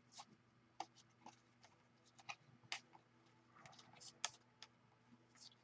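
Trading cards being flipped and slid through the hands one by one, making faint, irregular clicks and light snaps.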